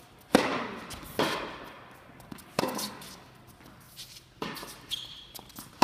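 Tennis racket hits on a serve and the rally that follows: sharp pops about every one to one and a half seconds, the serve the loudest, with fainter ball bounces between, ringing in the reverberant indoor tennis hall.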